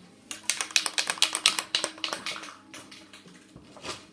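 A rapid run of sharp clicks and taps lasting about two seconds, fading out, then a single click near the end.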